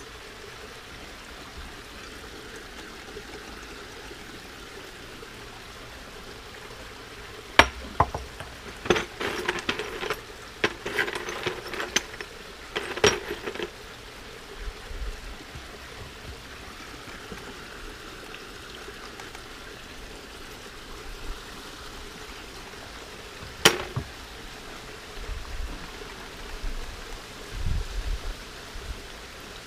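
Clinks and knocks of broken brick pieces and rocks being placed in a glass fishbowl terrarium: a cluster of sharp knocks in the first half and one sharp clink past the middle, over a steady hiss, with a few low thumps near the end.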